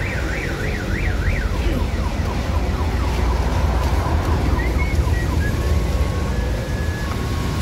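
Warbling electronic siren or alarm tone, rising and falling about three times a second, fading out about a second and a half in, over a steady low engine rumble. A few faint short held tones sound later.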